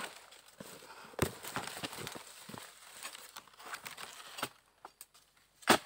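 A dodos (palm-harvesting chisel on a pole) jabbed into the base of an oil palm, with dry fronds and leaf litter crackling and rustling. A sharp strike comes about a second in and a louder one near the end.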